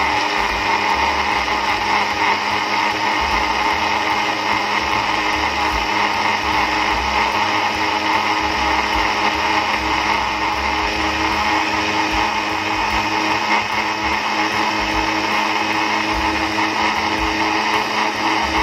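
Electric blender motor running steadily at speed, blending centella (pennywort) leaves with coconut water into a green juice.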